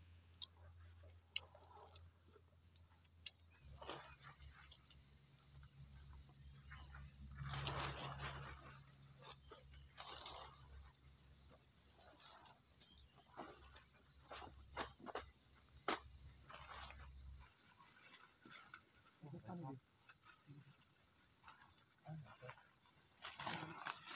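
Insects chirring steadily in one high continuous tone from about four seconds in, cutting off abruptly about seventeen seconds in. Over it come the rustle and clicks of tent nylon and poles being handled as tents are pitched, with faint voices now and then.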